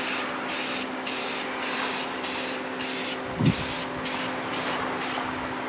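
Aerosol spray-paint can spraying in a dozen or so short hissing bursts, each under half a second, with brief gaps between.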